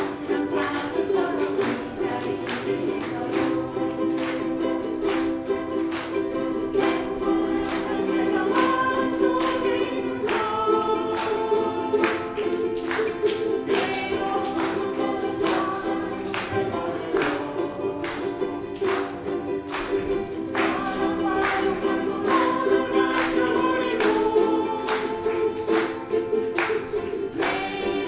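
Live music: strummed string instruments keep a steady rhythm while a group of voices sings the melody.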